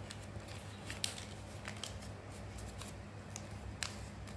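A sheet of paper handled and folded by hand: soft rustling with a few crisp creasing taps, over a steady low hum.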